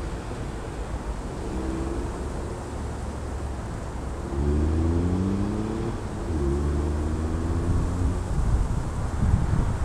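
Seat Ibiza 6L 1.2 three-cylinder engine, warm, idling through a NAP middle silencer and L&W rear silencer and revved up three times, the pitch climbing each time: about one and a half, four and a half and six and a half seconds in. Near the end, gusty wind rumbles on the microphone.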